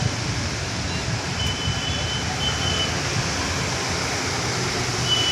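Steady rain hiss with a low rumble and traffic passing on the wet road. A few faint, short high-pitched tones come about a second and a half in and again near the end.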